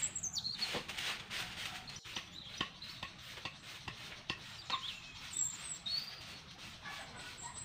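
A stiff stick broom sweeping dry leaves over bare dirt in repeated swishing strokes, with birds chirping and a few sharp knocks.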